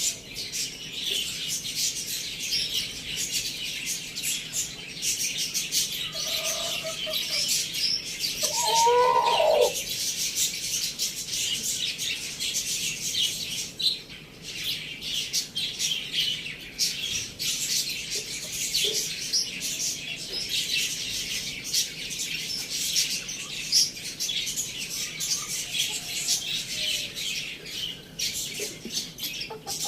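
Many small birds chirping rapidly and continuously in high, dense twitters, with one lower, louder call about eight to nine seconds in.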